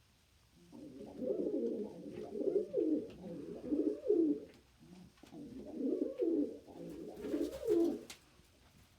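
Domestic pigeon purring: a low, rolling coo in two long bouts. Pigeons make this excited, agitated sound when they expect a fight with a rival or really good treats.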